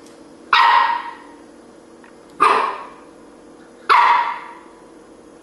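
Keeshond puppy barking three times, about a second and a half apart, each bark sharp and dying away quickly.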